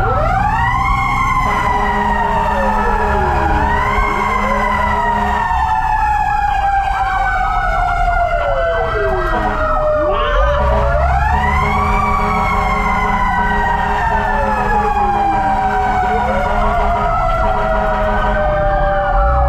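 Fire truck sirens wailing together, heard from inside the cab. One rises and falls slowly, another sweeps up and down every two or three seconds, over the low rumble of the truck's engine.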